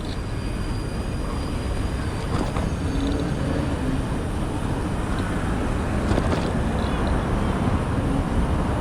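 Steady rush of road and traffic noise with wind on the microphone as a bicycle is ridden fast through city traffic.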